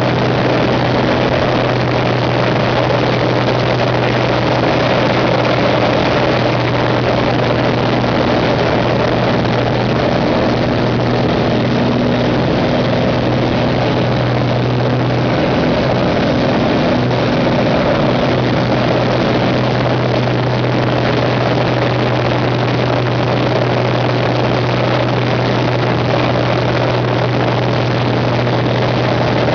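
Pitts S-2B aerobatic biplane in flight, heard from the cockpit: its six-cylinder Lycoming engine and propeller run steadily under loud rushing airflow during aerobatic manoeuvres. The engine note briefly changes about halfway through.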